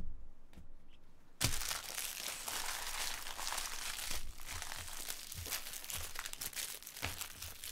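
Plastic trading-card packaging crinkling and tearing as it is handled and pulled open, starting about a second and a half in and running on with many small crackles until just before the end. A couple of light knocks come in the first second.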